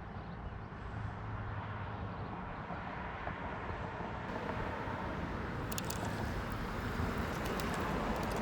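Steady wind and water noise from out on the lake, slowly getting louder, with a few faint ticks in the second half.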